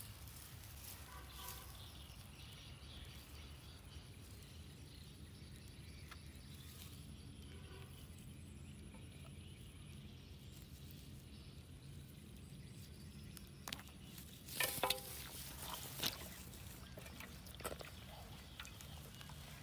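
Low steady outdoor background with faint rustling as a freshly caught fish is handled on dry grass and soil. A few short, louder knocks and scrapes come about three quarters of the way through.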